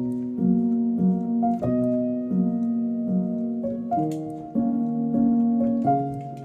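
Background music: a slow piano melody, with a new note struck about every half second over held tones.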